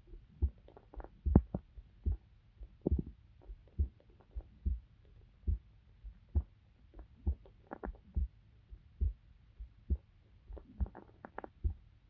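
A person's heartbeat picked up close by a microphone: steady, dull low thumps at about 70 beats a minute, with faint short clicks and rustles between the beats.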